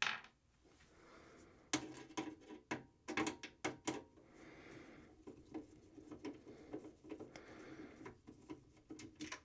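Screws being taken out of the back of a desktop computer case: a sharp knock, then a run of small metallic clicks and rattles, followed by faint, uneven scraping and ticking as a screw is turned out, ending on another click.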